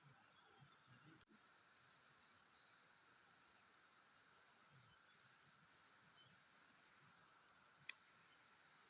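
Faint, steady insect chirring, a high continuous trill over a low outdoor hush, with one sharp click near the end.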